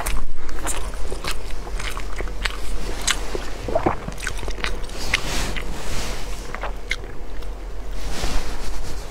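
Close-miked crunchy chewing of crispy fried food: an irregular scatter of short sharp crunches, loudest just after it begins.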